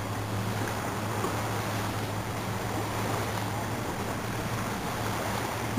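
Steady vehicle running noise: a low engine hum with road and wind noise, as heard from inside a moving car. It ends in a single sharp click as the recording cuts off.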